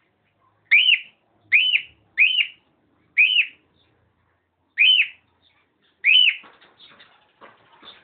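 Cockatiel calling: six loud, short whistled calls, each rising then falling in pitch, repeated at uneven intervals, followed by softer chattering near the end.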